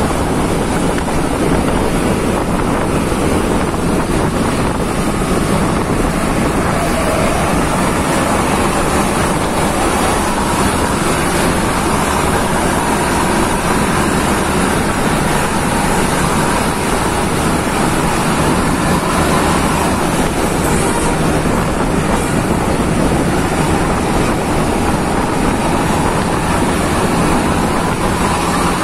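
Wind buffeting the microphone on a moving motorcycle, over steady engine and road noise from following close behind a bus.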